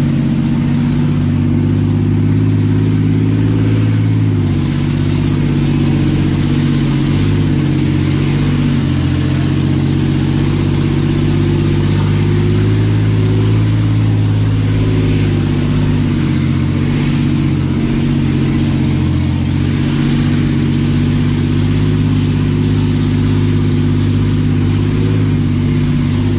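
Off-road 4x4's engine running at low, fairly steady revs as it crawls along a rough trail, its pitch rising and dipping a little with the throttle, heard from the open rear of the vehicle.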